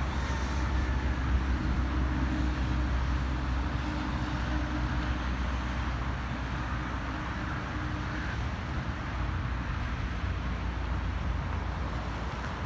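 Steady low rumble of road traffic, with wind on the microphone. A passing vehicle's engine hum holds one pitch from about two seconds in and fades by about eight seconds.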